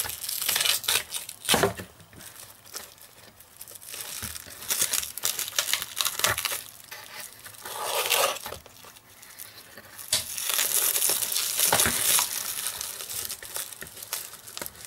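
Clear plastic wrap crinkling and tearing in several bursts as it is slit with a hobby knife and pulled open around a stack of laser-cut wooden sheets; the longest burst comes about two-thirds of the way in.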